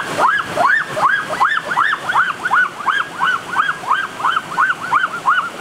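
An animal whining: high cries that rise and fall, repeated evenly about three times a second.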